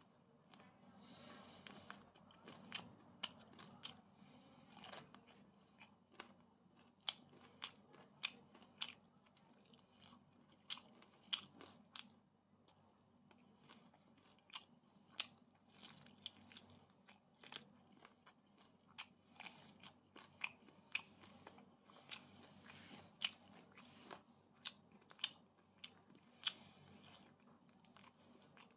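A person chewing crunchy food close to the microphone: sharp crunches, roughly one or two a second, between quieter chewing.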